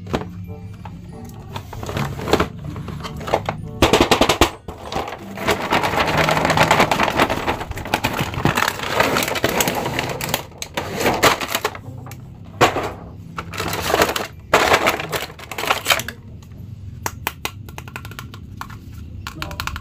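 Battery-operated crawling soldier toy figures with rifles playing electronic machine-gun sound effects: rapid rattling bursts, several toys at once and densest in the middle, over background music.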